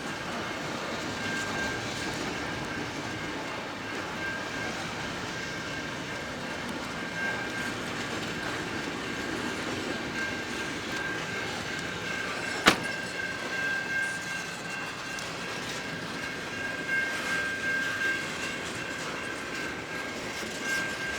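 Freight train's intermodal stack cars rolling past: a steady noise of wheels on rail with a thin, steady high-pitched ring over it. There is one sharp clank about halfway through.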